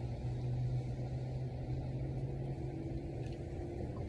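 A steady low mechanical hum over a rumble, like a motor or engine running. Its lowest tone fades out a little past halfway.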